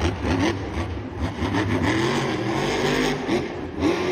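Revving, engine-like sound whose pitch swoops up and falls back again and again, over a steady low hum.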